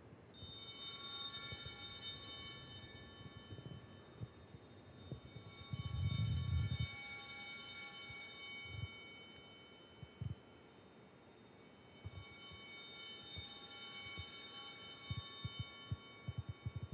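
Altar bells rung three times at the elevation of the consecrated host, each ring a cluster of high steady tones that fades over a few seconds. A brief low thud comes about six seconds in.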